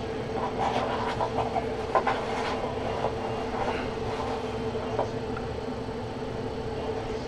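Baseball trading cards handled and set down on a table: light rustles and taps through the first couple of seconds and one more tap near five seconds. A steady low hum runs underneath.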